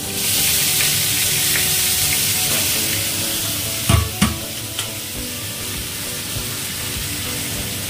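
Chopped vegetables hitting hot oil in a steel kadai, setting off a sizzle that starts sharply and eases a little after about three seconds. About four seconds in come two sharp knocks as the plastic basket is set down in the sink.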